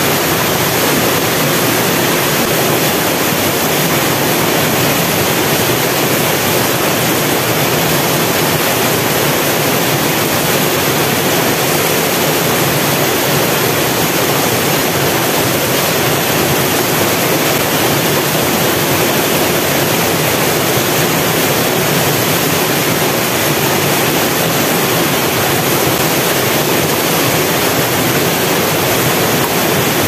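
Waterfall and the rocky stream below it rushing over boulders: a loud, steady rush of water.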